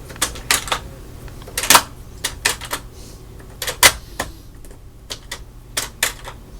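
HyperTough digital deadbolt being worked by hand, its bolt mechanism giving a series of sharp, irregular clicks and clacks in small clusters. Its action is very rough, not smooth.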